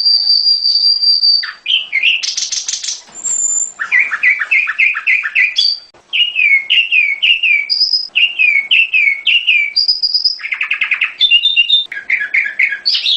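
Prenjak gunung (mountain prinia) singing: a long, steady, high whistle, then rapid buzzy trills and runs of quick down-slurred notes, repeated in phrases. It is a bird-lure song meant to make a caged prenjak answer.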